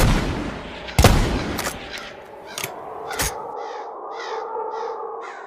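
Horror sound-effect outro after the beat drops out: two heavy hits about a second apart and three sharper cracks, then a string of short repeated calls, about two a second, over a sustained drone that fades away.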